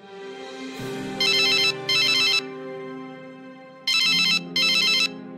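Telephone ringing in double rings, each a rapid electronic warble: two pairs of rings about two and a half seconds apart, over soft background music.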